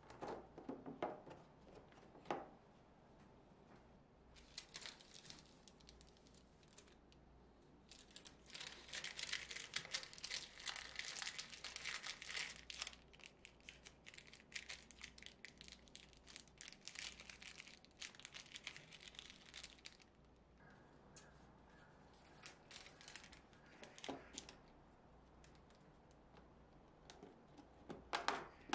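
Packing a clear plastic takeout container by hand: a few clicks as the plastic lid goes on, then long stretches of paper and plastic crinkling and tearing as a paper band is wrapped around the box and taped, with scattered handling clicks near the end.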